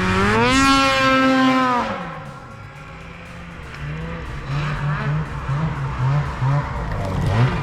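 Two-stroke snowmobile engine revving hard, climbing in pitch and holding high for a moment before backing off. It then runs at lower, uneven throttle with short blips, and revs up and down again near the end.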